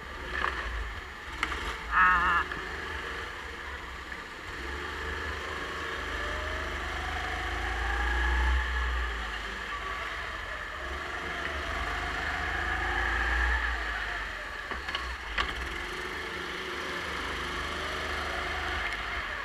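Racing kart engine heard onboard, running under load with its pitch rising in long sweeps as it accelerates and falling back as it slows for corners. There are a few sharp knocks near the start and again about two-thirds of the way through.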